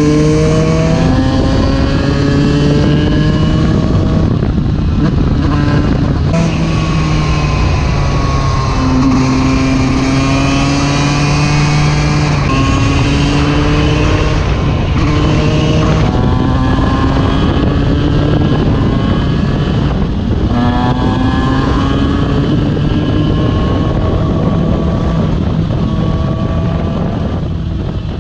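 Yamaha YZ125 single-cylinder two-stroke engine under hard acceleration. Its pitch climbs again and again and drops back at each gear change as the rider runs up through the gears.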